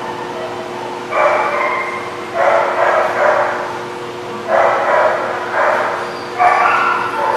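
Dogs vocalizing during rough play-wrestling: about five short growly bursts, each half a second to a second long, with gaps in between.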